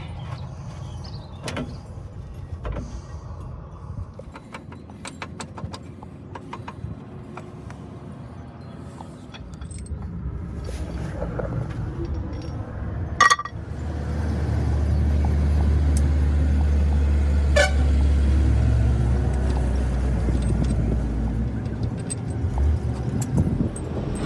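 Sharp metallic clicks and taps, then a vehicle engine's low rumble that swells about halfway through, holds for several seconds and fades near the end.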